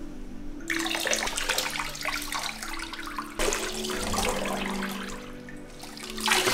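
Water poured from a plastic cup over a small dog standing in a bathtub, splashing into the bathwater. The pouring starts about a second in, comes again at about three and a half seconds, and is loudest near the end.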